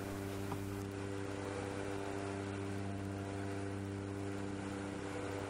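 Propeller aircraft in flight, its engines droning steadily: a low hum with several steady tones stacked above it.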